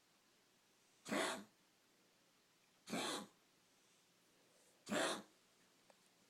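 A pet coughing in one of its recurring coughing spells: three short coughs about two seconds apart.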